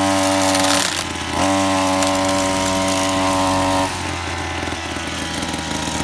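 Small petrol engine of a grass-cutting machine running. It is revved up twice, for about a second and then for about two and a half seconds, and drops back to a lower, steady speed between and after.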